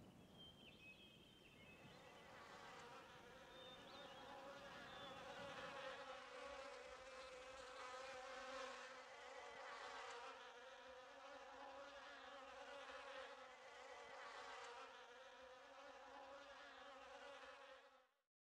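Faint, steady buzzing of flies, swelling from about two seconds in and cutting off suddenly near the end.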